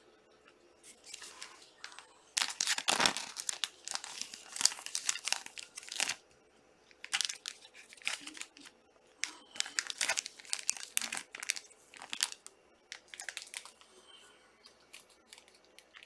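Wrappers being crinkled and torn in irregular crackling bursts, busiest a few seconds in and then coming in shorter spells.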